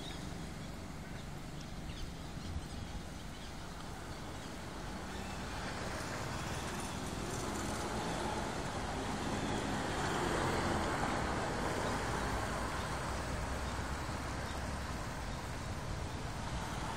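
A motor vehicle passing on the road, growing louder to a peak about ten seconds in and then slowly fading, over a steady low rumble.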